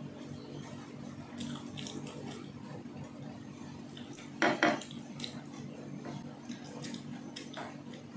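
Cutlery clinking and scraping on a plate while eating, with small scattered clicks and one louder clatter about halfway through, over a steady low hum.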